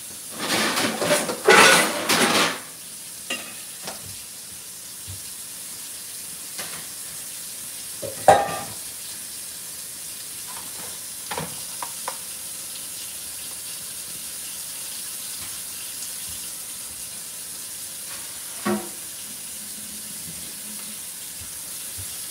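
Loud rustling and knocking close to the microphone for the first two seconds or so, then a few scattered light clicks and knocks of kitchen handling over a steady high hiss.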